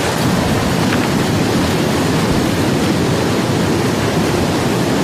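Fast-flowing river rushing past the bank, a steady loud noise of churning water.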